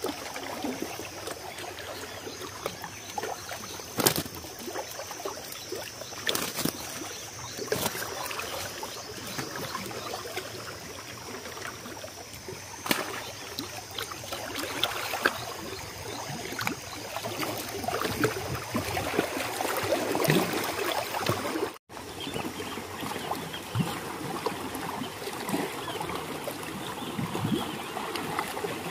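Small waves lapping and splashing against a rocky shore, with a few sharp knocks and clicks.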